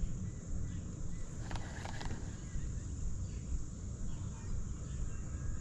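Lakeside outdoor ambience: a steady low rumble with a faint high steady hiss, and two short bird calls about a second and a half in.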